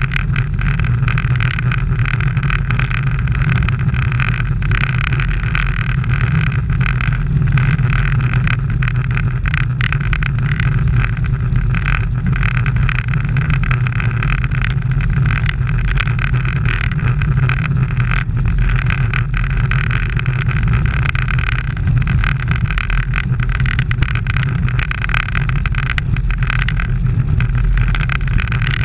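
Steady, loud rumble of wind and tyre noise from a camera riding on a racing road bicycle at speed, with no clear changes.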